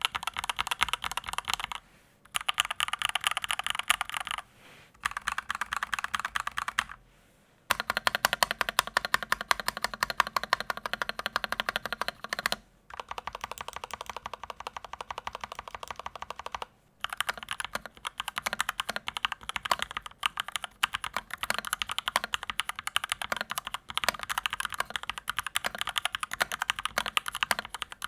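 Typing on a stock Krux ATAX 65% Pro mechanical keyboard with factory-lubricated Gateron Yellow Pro linear switches and PBT double-shot keycaps. Keys are struck rapidly in dense runs, broken by a few short pauses.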